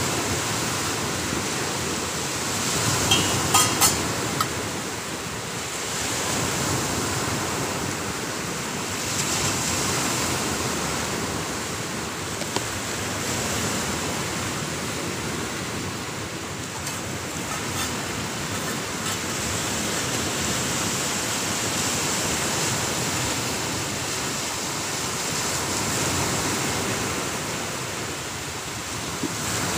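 Ocean surf breaking steadily, the noise swelling and easing every few seconds. A few light metallic clinks about three to four seconds in.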